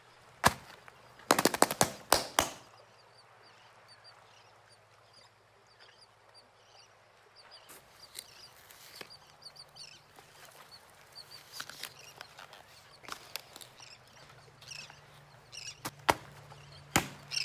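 Plastic sand toys and moulds knocking and tapping against buckets and a plastic tarp as moldable play sand is packed and pressed. There is a quick cluster of knocks one to two seconds in, then scattered single taps, over a faint steady low hum.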